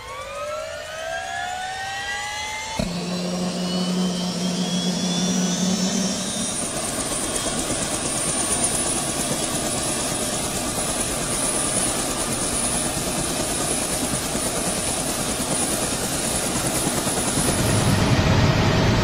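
Helicopter turbine and rotor noise. A whine rises in pitch over the first few seconds, then it gives way to steady, dense engine and rotor noise with a high, thin whine running over it.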